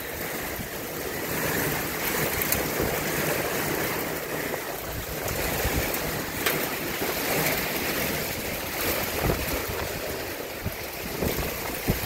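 Heavy rain and hail pelting down: a steady hiss with a few sharp clicks of hailstones striking.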